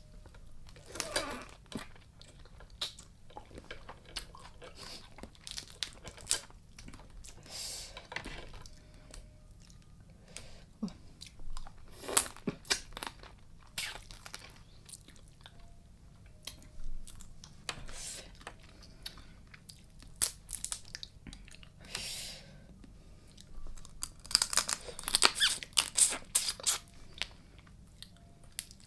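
Close-miked eating sounds: biting and cracking into the shell of a raw blue swimmer crab, tearing at it, and chewing, with scattered sharp cracks and a dense run of crunches near the end.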